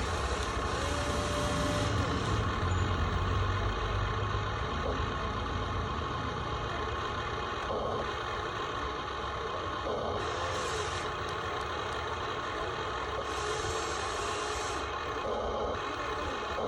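Excavator running while it digs: a steady mechanical drone with a high whine, its low rumble heavier in the first few seconds. A few short whines rise and fall in pitch.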